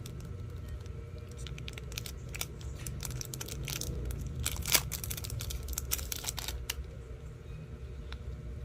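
Packaging being handled and torn open: a run of crinkles, crackles and tearing sounds, sharpest just before the five-second mark, dying away after about six and a half seconds, over a steady low hum.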